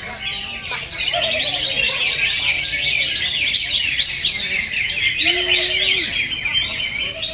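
Several cucak ijo (green leafbirds) singing at once: a dense, unbroken chatter of rapid, varied chirps and trills, with a few lower whistled notes mixed in.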